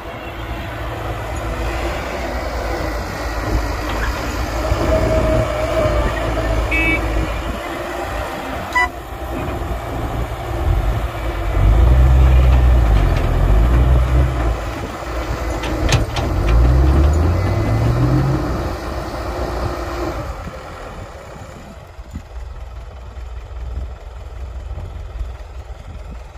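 Heavy diesel earthmoving machinery running with a steady low rumble. Through the middle the engine revs up and down several times under load, with a couple of sharp clanks, then settles to a quieter idle for the last few seconds.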